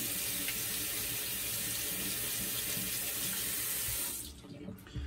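Water running steadily from a bathroom sink tap, then stopping about four seconds in.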